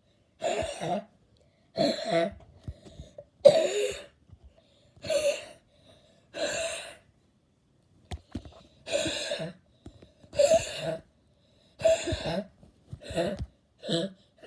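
A person making a series of short vocal noises, about a dozen separate bursts each under a second long, with a pause of about two seconds near the middle.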